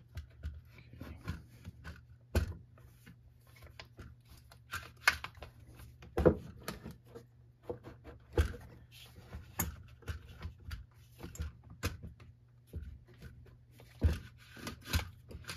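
Plastic recoil starter housing being pressed and twisted by hand onto a Troy-Bilt TB22EC string trimmer engine, giving irregular clicks and knocks of plastic on plastic as it fails to seat fully.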